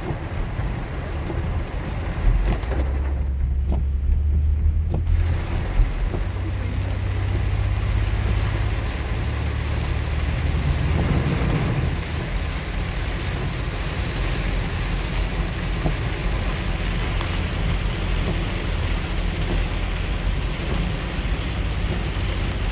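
Heavy rain beating on a 2006 Ford Freestar minivan's windshield and body, with its tyres on the soaked road and a steady low rumble, heard from inside the cabin. About eleven seconds in, a surge of water sprays over the windshield.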